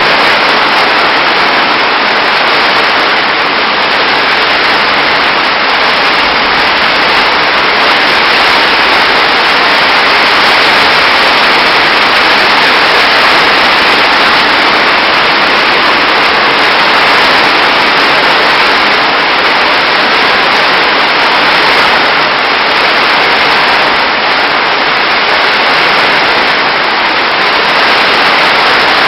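Heavy rain, a loud steady hiss with no letup.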